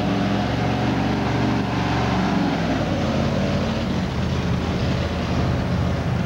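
An engine running steadily at low speed, its tone changing slightly about three seconds in.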